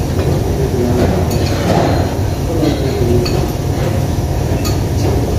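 Spoons clinking against bowls a few times over a steady low rumble.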